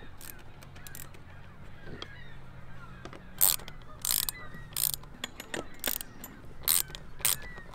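Irregular sharp metal clicks and clinks of a screwdriver and wrench working the bolts of a stainless-steel stanchion base as it is tightened down, louder and more frequent from about halfway, over a faint low steady hum.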